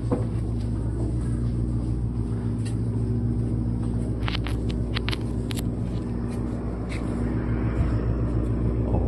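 Steady low engine drone of a boat on the river, with a few sharp clicks a little past the middle.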